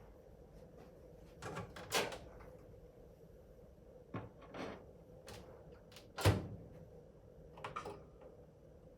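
Kitchen handling sounds: irregular knocks and clatters of things being moved and set down, about eight in all, the loudest a thud about six seconds in.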